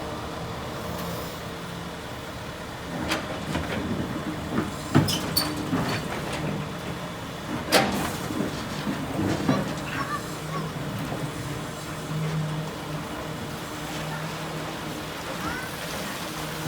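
Excavator's diesel engine running steadily, with several sharp knocks, the loudest about five and eight seconds in.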